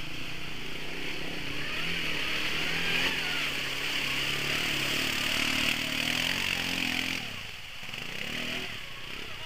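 Quad bike (ATV) engine revving as it pulls through a muddy, water-filled rut and passes close by, the engine note rising and falling; it drops off after about seven seconds.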